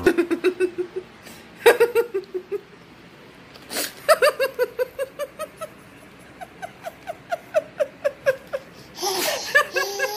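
Baby laughing in several bouts of quick, rhythmic, high-pitched giggles with short pauses between them.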